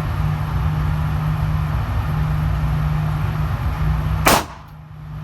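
A single pistol shot, sharp and loud, about four seconds in, over a steady low hum; the background drops away for a moment right after the shot.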